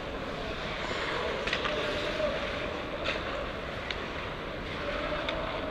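Live ice hockey play heard from a skating referee's helmet mic: a steady rush of wind and skate noise, with a few sharp clacks of sticks and puck.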